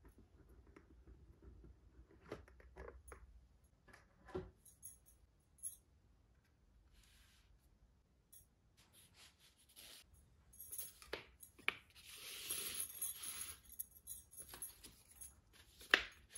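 Cardboard jigsaw puzzle box and pieces being handled: soft scattered taps and clicks as the box is opened, then a stretch of rustling and sliding as the loose cardboard pieces are stirred in the tray. A sharp tap comes near the end as a piece is set down.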